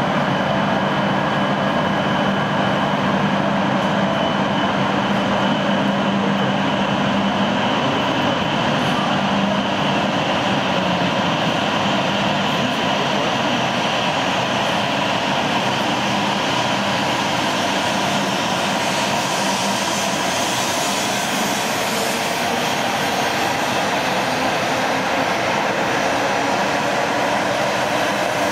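An E7/W7-series Hokuriku Shinkansen train pulling out of the station and gathering speed: a steady running rush of the cars gliding past, with an electric whine that climbs in pitch near the end.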